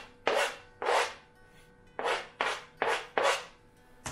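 A metal spoon scrapes chopped jalapeños off a chopping board into a bowl in short rasping strokes: two, then a pause, then four more in quick succession.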